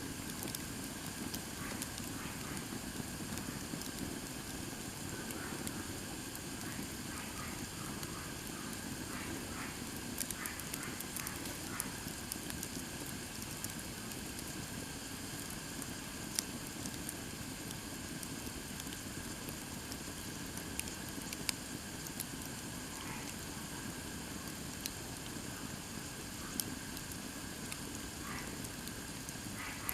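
Wood campfire of split firewood burning with a steady low rush of flame, broken by scattered sharp crackles and pops from the burning wood.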